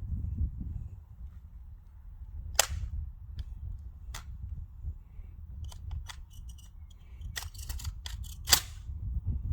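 Two sharp gunshots about six seconds apart on a rifle range, each with a short ringing tail. Several smaller cracks and clicks fall between them, over a steady low rumble.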